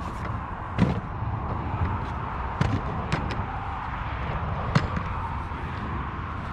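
A handful of sharp knocks and clicks, the loudest about a second in and near the five-second mark, from fishing gear being handled, over a steady background noise.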